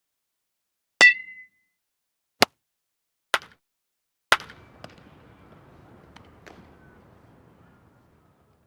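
Baseball bat hitting a ball four times, each a sharp single crack about a second apart. The first has a short metallic ping like an aluminium bat. After the last hit a low wash of noise fades away over about four seconds.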